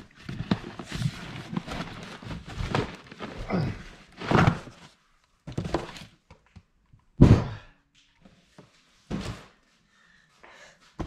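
Cardboard box flaps and packing rustling and scraping as a heavy 8-inch subwoofer is pulled out of its box. Then come several dull thunks as the subwoofer and the box are handled and set down, the loudest about seven seconds in.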